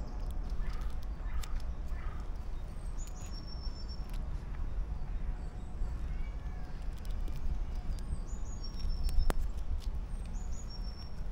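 Birds call in short, high falling phrases a few times over a steady low rumble. Scattered sharp clicks and cracks, one louder about nine seconds in, come from a grey squirrel gnawing a nut shell close to the microphone.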